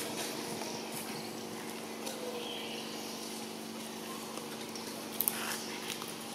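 Steady outdoor background: an even hiss with a faint low hum, a couple of faint chirps, and a few light clicks about five seconds in.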